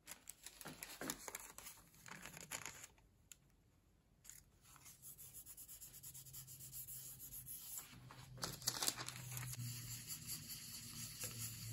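Faint rustling and crinkling of paper and an aluminium-foil printing plate being handled, with scattered light taps. Near the end a sheet of paper is pressed and rubbed down onto the foil.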